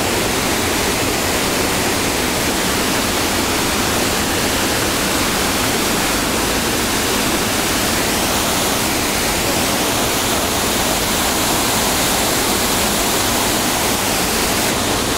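Mountain torrent rushing and falling through a narrow rock gorge: loud, steady white water.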